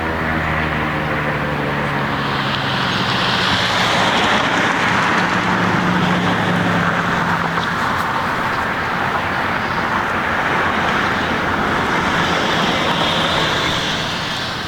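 Road traffic noise, cars passing with two slow swells, while a low hum fades away in the first few seconds.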